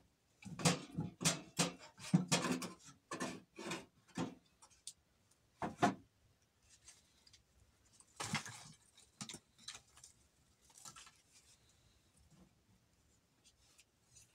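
Plastering trowel scraping plaster across a surface: about ten quick strokes in the first four seconds, then a few spaced strokes.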